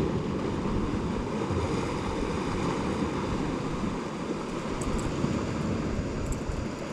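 Steady wash of ocean surf with wind rumbling on the microphone.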